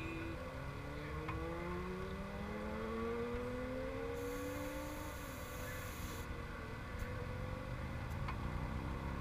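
A racing vehicle's engine accelerating on the track, its pitch climbing steadily through about the first five seconds, over a low rumble.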